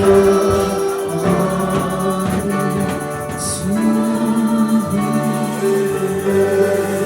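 Gospel music with group singing.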